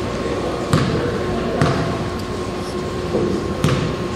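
Basketball bouncing on a gym floor, three sharp thuds, the first two under a second apart, over a steady background murmur of voices.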